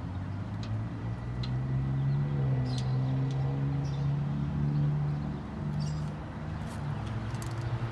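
A motor vehicle engine running with a low steady hum that shifts pitch slightly a few seconds in, with scattered light clicks over it.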